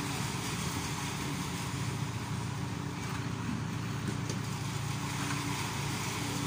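CarMix self-loading concrete mixer's diesel engine running steadily, a constant low hum with an even level.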